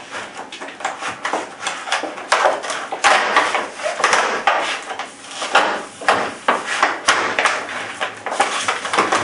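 Stiff clear plastic clamshell packaging crackling and rustling irregularly as it is pried open and handled, with a few sharper knocks.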